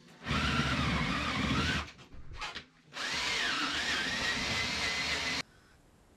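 Cordless drill boring into a wooden block: a run of about a second and a half, two short blips, then a longer run of over two seconds that cuts off suddenly, the motor's whine dipping and recovering as the bit bites.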